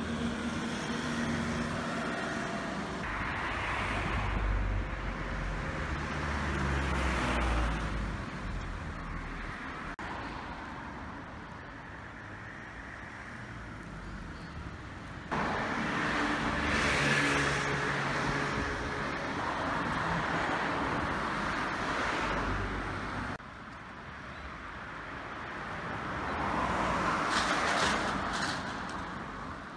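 Road traffic: cars passing by one after another, each rising and fading away. The background changes abruptly twice where separate street recordings are joined.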